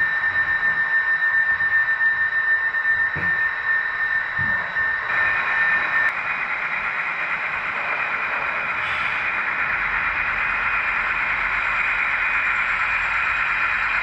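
Model freight train running on layout track, its wheels making an even rolling noise. A steady high whine runs over it until about six seconds in, then stops, leaving only the rolling noise.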